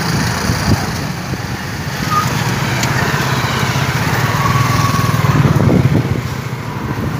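Motorcycle engines running in slow traffic as the bikes move off together, with road noise. The sound grows a little louder around five to six seconds in.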